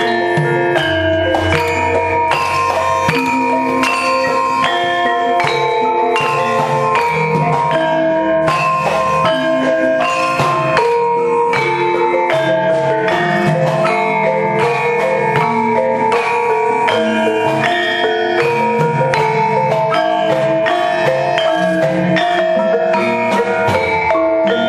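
Javanese gamelan playing battle music: bronze metallophones ring in a steady stream of pitched notes over low kendhang drum strokes. Frequent sharp clattering knocks cut through, from the dalang's keprak plates and cempala striking the puppet box.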